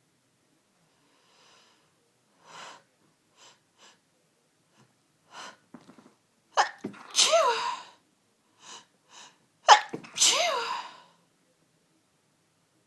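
A woman sneezing twice, about three seconds apart, each sneeze set up by a few short, catching in-breaths. The sneezes are part of an ongoing allergy sneezing fit.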